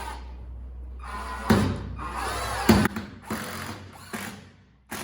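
A handheld power drill/driver run in one long burst with a whirring pitch, then triggered in several short bursts.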